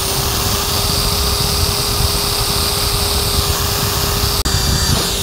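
Power drill with a small bit drilling a pilot hole through the thin steel of a Weber kettle's rotisserie ring. The motor runs at a steady pitch while the bit cuts into the metal.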